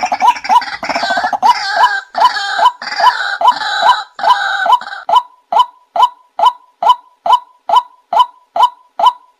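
White-breasted waterhen calling: a dense, overlapping croaking and gurgling chorus for about the first five seconds, settling into a steady series of single 'kwaak' notes, close to three a second.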